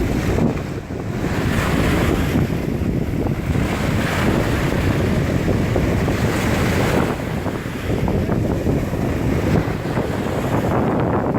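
Ocean surf breaking on the beach, with strong wind buffeting the microphone in a heavy low rumble. The noise swells and eases every few seconds as waves come in.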